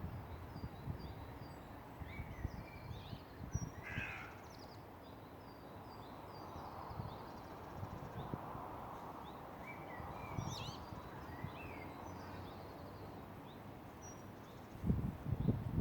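Several songbirds singing and calling: many short, high chirps and trills throughout, with a louder call about four seconds in and another about ten seconds in. Low thumps come near the end.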